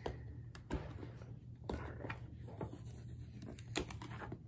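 Cardboard toy box being handled and its top flap worked open: scattered light scrapes and taps of fingers on cardboard.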